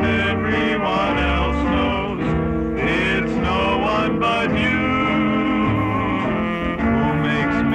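Background music: an instrumental song with a steady bass line and guitar, in a country or bluegrass style.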